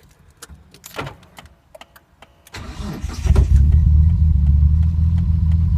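Freshly rebuilt Nissan Skyline R33 GTS-T's RB25DET turbocharged straight-six cranking and catching on its first start about three seconds in, then settling into a steady idle.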